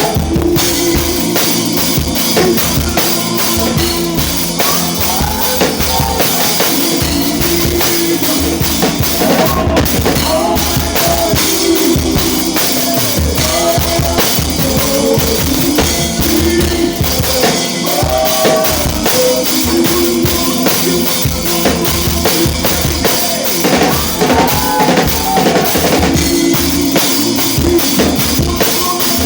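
Live worship band playing an instrumental groove, the drum kit loudest, with steady kick and snare hits and cymbals over sustained bass and melodic lines.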